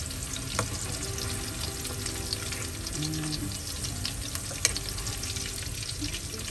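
Potato and carrot pieces frying in hot oil in a non-stick wok, sizzling steadily with scattered small pops. A silicone spoon stirs and scoops the pieces out of the oil.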